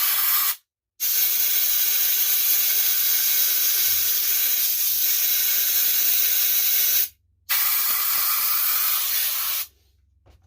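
Compressed-air blow gun hissing in long blasts, stopping shortly before the end. It is drying out a STIHL MS200T chainsaw that won't start and may have flooded.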